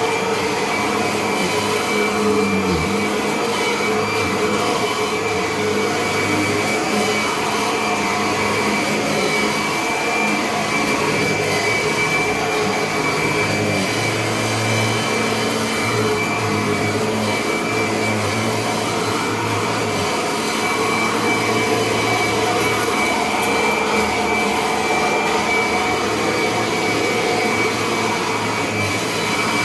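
Kirby upright vacuum cleaner running steadily, with a high motor whine. Its low hum swells and fades every few seconds.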